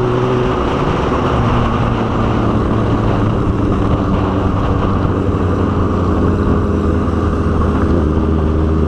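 Motorcycle engine running steadily while riding, with a constant rush of wind and road noise.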